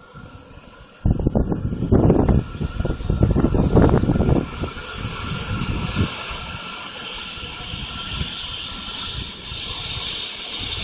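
Eurocopter EC-135's twin turbine engines spooling up during engine start, a high whine rising steadily in pitch over a steady rushing turbine noise. Loud low buffeting rumble from about a second in until about four seconds in.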